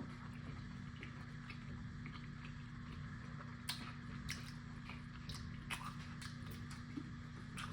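Faint close-up chewing of tortilla pizza, with scattered wet mouth clicks and lip smacks that come more often in the second half, over a steady low hum.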